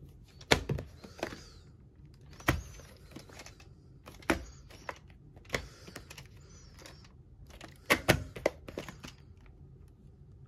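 Handling noise: a handful of sharp, irregular clicks and knocks with brief rustling as a hand handles a plastic VHS tape case and the handheld camera.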